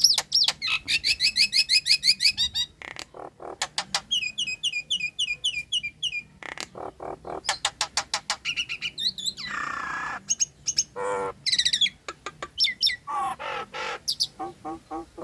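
Nias hill myna singing a varied song: fast runs of repeated whistled notes, one long harsh call just before halfway, then assorted loud whistles and chatter.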